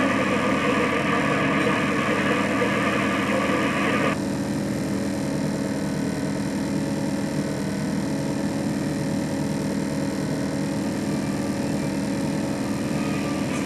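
Static hiss from a JVC KD-R370 car stereo tuned to AM for about the first four seconds, cutting off suddenly as the source changes to AUX. Under it, the 1994 Saturn SL2's four-cylinder engine idles steadily, heard from inside the cabin.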